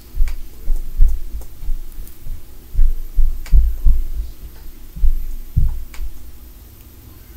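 Heavy, dull thuds of stomping and running from a neighbouring unit, carried through the floor and walls. About a dozen come in an irregular run and die away near the end.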